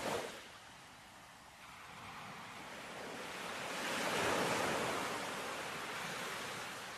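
Sea waves washing in. One surge fades away just at the start, then a larger one swells to a peak about four seconds in and eases off.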